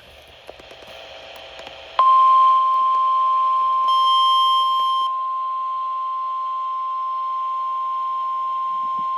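NOAA Weather Radio alert sequence: about two seconds of low radio hiss, then the steady single-pitch 1050 Hz warning alarm tone starts and holds, the signal that a warning message follows. A higher beep briefly overlaps it about four seconds in.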